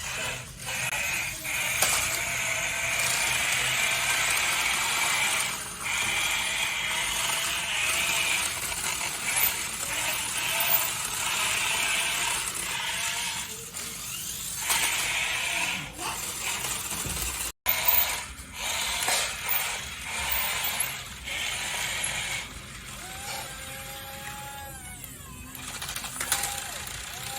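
Small electric motors of RC toy vehicles whirring, with plastic parts rattling and knocking against each other.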